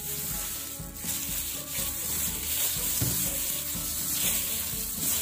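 Yeast dough being kneaded by hands in plastic gloves on a cling-film-covered board: a soft, continuous rubbing and crinkling, under a steady hiss and quiet background music.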